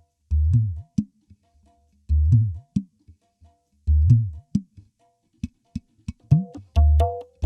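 Music with deep bass-guitar notes in short phrases broken by brief silences, with sharp percussive clicks; a plucked melody joins the bass about six seconds in.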